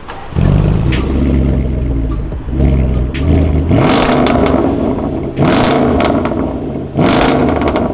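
Range Rover Sport's engine revving with its exhaust flaps open. It comes in strongly about half a second in and climbs in a rev near three seconds, then gives three sharp throttle blips at about four, five and a half and seven seconds.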